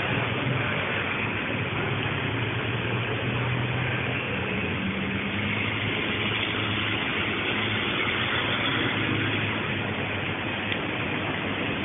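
Steady rushing background noise with a faint low hum, heard through a phone's narrowband AMR audio that cuts off everything above about 4 kHz.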